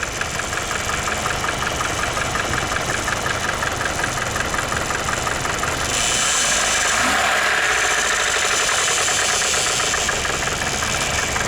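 Car engine running with the bonnet open and a heavy, rhythmic knock, revved up about six seconds in. The owner suspects a failed oil pump let the camshaft bearing bed overheat.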